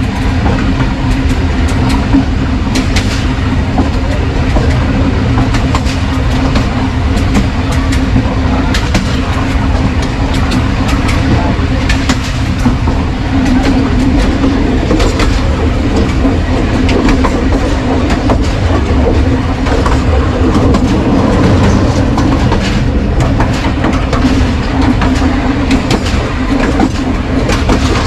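Passenger train running along the track, heard from on board: a steady loud rumble with the wheels clattering in irregular sharp clicks over rail joints.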